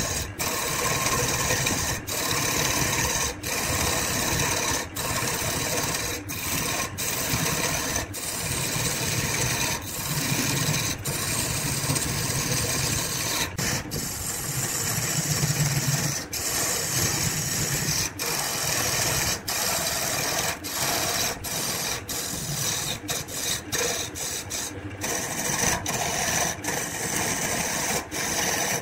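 Wood lathe running with a turning tool cutting into the spinning wood: a steady, noisy cutting sound, broken by brief dropouts every second or two.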